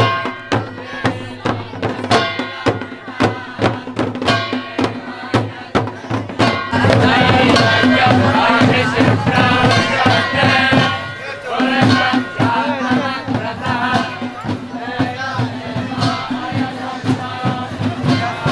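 Procession music: hand drums beat a steady rhythm with sharp metallic strikes. About seven seconds in it gets louder as many voices come in over a steady held low note.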